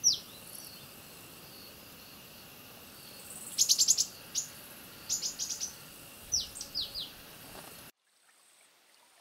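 Small birds calling: a falling whistle at the start, a fast run of sharp chirps about three and a half seconds in, then more chirp runs and falling whistles, over a steady high hiss. The sound cuts off suddenly about eight seconds in.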